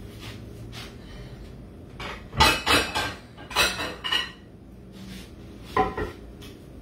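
Dishes and metal utensils clattering and clinking: two spells of clatter in the middle and a single sharp clink near the end that rings briefly.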